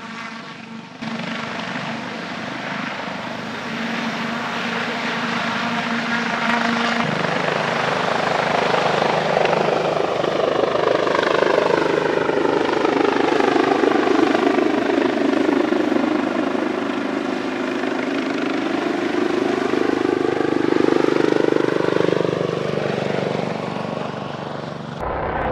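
Sikorsky S-97 Raider, a compound helicopter with two stacked counter-rotating rotors and a rear pusher propeller, flying low past. Its rotor and propeller noise grows louder toward the middle, and its tone sweeps down and back up as it goes by.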